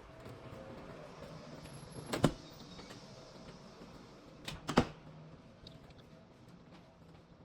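Two sharp knocks about two and a half seconds apart, the second a quick double, over a faint steady hum.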